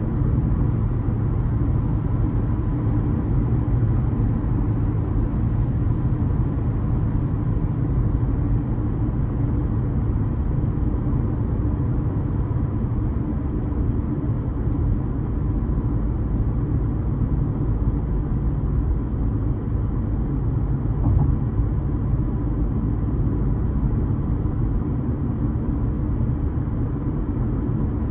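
Steady rumble of a car driving along: road and tyre noise with the engine running underneath, even in level throughout.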